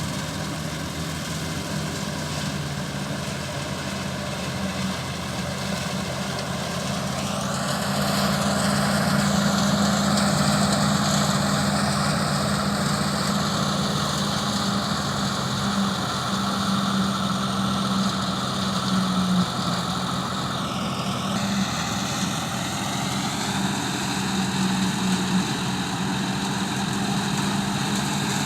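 An engine running steadily under a continuous mechanical hiss, its pitch shifting upward about a quarter of the way in and changing again about three quarters of the way through.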